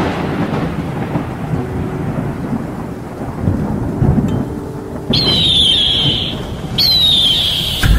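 Cinematic logo-reveal sound effect: a thunder-like rumble with a crackling, rain-like hiss, and two bright shimmering swooshes that start suddenly about five and seven seconds in and fall slightly in pitch.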